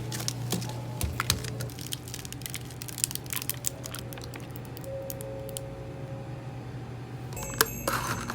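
A run of light clicks and taps through the first few seconds, then a short clatter near the end, over faint background music.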